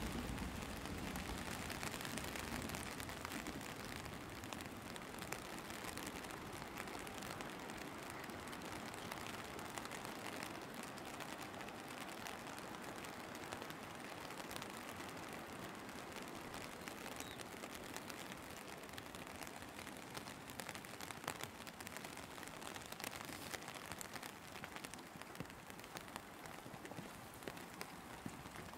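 Steady rain falling, an even hiss dotted with many small drop ticks. A low rumble fades out over the first few seconds.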